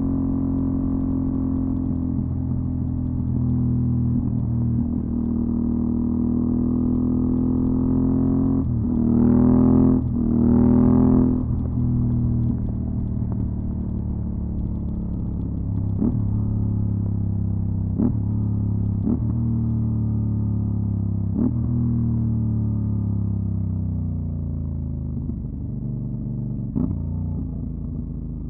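Aprilia Dorsoduro 750's V-twin engine through a LeoVince SBK aftermarket exhaust, running steadily. About a third of the way in there are two quick revs, and after that the engine note slowly falls. Several sharp clicks sound over the engine in the second half.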